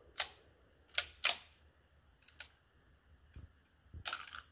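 Several sharp metallic clicks from a shotgun's action being handled and worked, the loudest pair about a second in.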